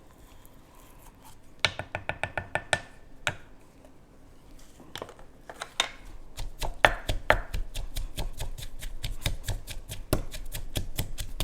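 Pestle pounding in a mortar, working sugar into a rough chili and garlic paste. A short quick run of knocks comes about a second and a half in. Steady, rapid pounding of several strikes a second follows from about five seconds on.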